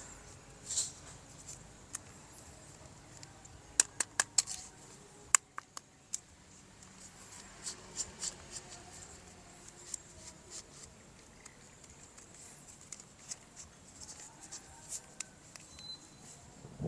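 Light handling of plastic toy parts and packaging: a quick run of five sharp clicks about four seconds in, another sharp click a second later, then scattered soft ticks and taps.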